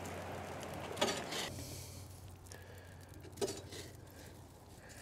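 A steel poker scraping and clanking in the steel firebox of a homemade barrel smoker as the hot coals are stirred, with two sharper clanks about a second in and about three and a half seconds in, and a faint metallic ring.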